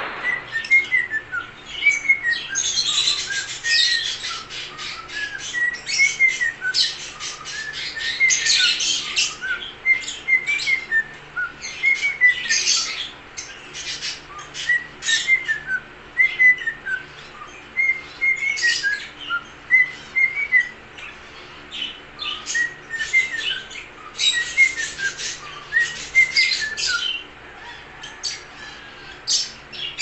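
Cockatiel singing: runs of short whistled notes stepping up and down in phrases that repeat every couple of seconds, mixed with sharp high chirps.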